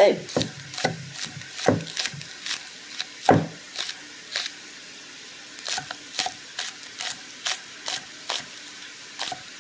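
Chef's knife chopping green onions on an end-grain wooden cutting board: a run of sharp knocks of the blade on the wood, about two or three a second, with a brief pause about halfway through.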